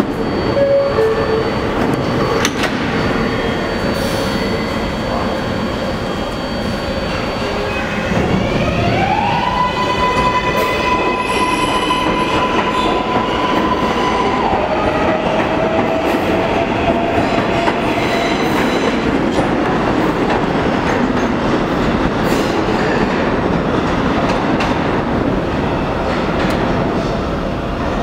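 R142A subway train pulling out of the station. About eight seconds in, its AC traction motors start a whine that rises in pitch in steps, holds a high tone for several seconds, then drops to a lower tone. Under it run steady wheel rumble and clatter as the cars pass and draw away.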